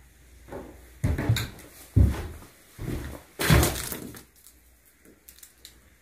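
Footsteps thudding on old wooden floorboards, four steps about a second apart.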